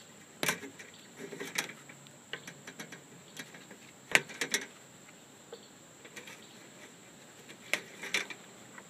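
Wire cutters snipping through insulated wires on a fluorescent light fixture, giving sharp clicks in clusters of one or two every few seconds, with softer ticks from the cutters and wires against the sheet-metal housing.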